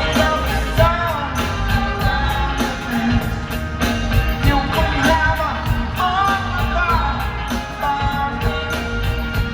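A live rock band plays an arena concert with a heavy, steady bass groove and a male lead voice singing over it.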